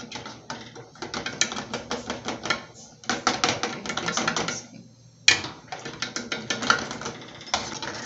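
Metal spoon scraping and clicking rapidly against the bottom of an aluminium pudding mould while stirring sugar as it melts into caramel. The stirring stops briefly about five seconds in and resumes with a sharp knock of the spoon.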